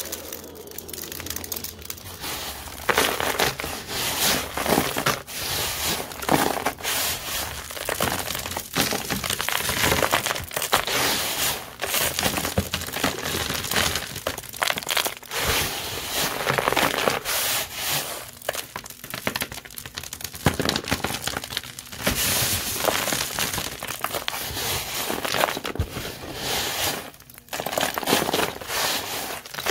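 Dry vacuum dirt, a mix of lint, fine dust and paper confetti, being crushed and crumbled by hand. It makes a dense run of small, irregular crunches with no motor running.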